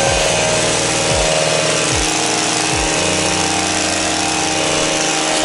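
Stihl two-stroke pole hedge trimmer running steadily at cutting speed, its reciprocating blades shearing through shrub branches.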